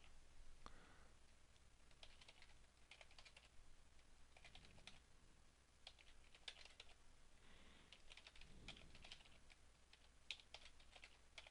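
Faint computer keyboard typing: short runs of quick keystrokes separated by brief pauses.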